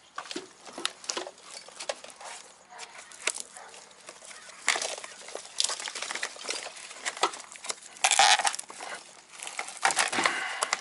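Hands prying and pulling plastic parts and wiring apart in a car's engine bay: irregular clicks, rattles and rustling scrapes, with a louder scraping burst about eight seconds in.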